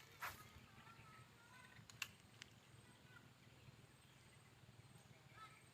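Near-quiet outdoor ambience with faint, short animal chirps and a few sharp clicks, the loudest click about two seconds in.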